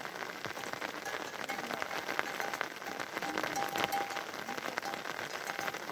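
Steady rain falling, a dense patter of many small drops hitting surfaces, with a faint, broken high tone in the background.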